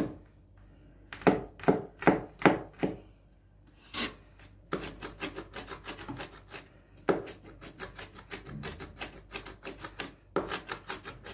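Cleaver mincing onion and garlic on a bamboo cutting board. A few separate chops of the blade on the wood come first, then quick, lighter rocking chops at about five to six a second, with a louder flurry near the end.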